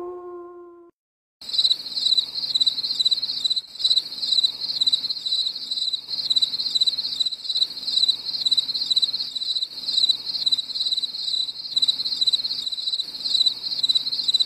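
Crickets chirping in a fast, pulsing high-pitched trill, starting abruptly about a second and a half in and keeping on steadily.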